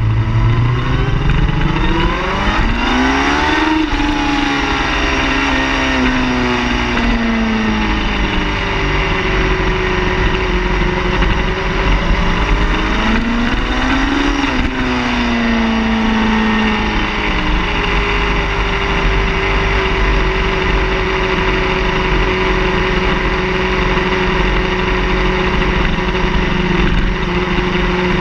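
Car engine running loud, its pitch climbing twice as it picks up revs, peaking about four seconds in and again about halfway through, each time dropping back before holding a steady drone.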